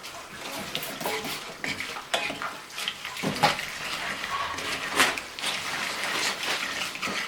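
A utensil clinking and scraping irregularly against a dish as ingredients are stirred together with vinegar.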